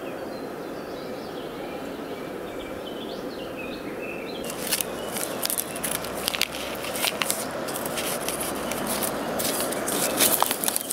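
Small birds chirping over a steady hiss, then from about four and a half seconds in, the crinkling and tearing of a tea bag's paper sachet being opened by hand, in a run of sharp crackles.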